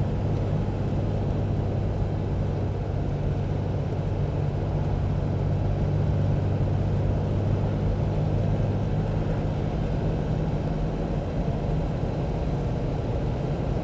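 Cabin sound of a 1988 Toyota Land Cruiser HJ61 cruising in fifth gear at about 60 mph: its 4-litre turbo-diesel inline-six runs steadily at about 2100–2200 rpm, with road noise underneath.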